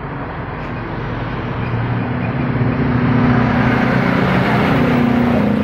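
An engine running steadily: a low hum over a noisy mechanical wash that grows a little louder over the first few seconds.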